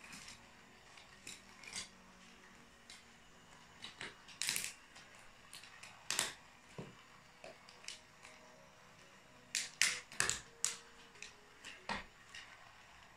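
Small plastic toy train cars and track cracking and snapping under stiletto-heeled boots, in irregular sharp cracks. The loudest run of snaps comes about ten seconds in.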